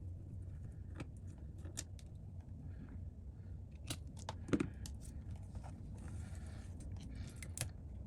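Small repair tools and parts clicking and tapping against an iPad during disassembly, with a louder knock about four and a half seconds in, over a steady low hum.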